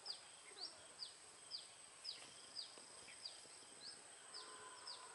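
Small bird giving a series of short, high chirps, about two a second, each sweeping quickly in pitch; faint, over a steady thin high tone.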